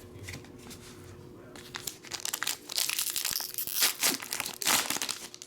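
A Pokémon booster pack's plastic wrapper being torn open and crinkled, starting quietly and turning into a run of sharp crackles about two seconds in that lasts until near the end.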